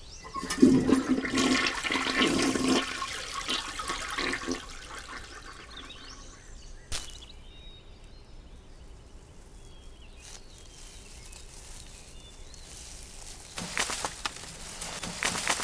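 A toilet flushing: a rush of water for the first few seconds that drains away by about five seconds in. Faint forest ambience follows, with a single sharp click about seven seconds in.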